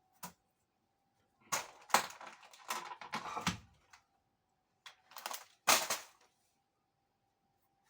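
Eating noises: a spoon scraping up food and the food being chewed, in two clusters of short noisy bursts, over a faint steady tone.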